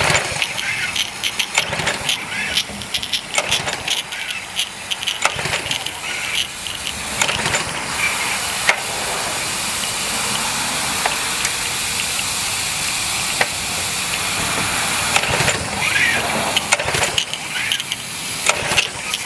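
Briggs & Stratton 6.75 HP engine on a pressure washer being pull-started over and over, the recoil cord cranking it without the engine catching: a no-start. A steady hiss fills a stretch in the middle.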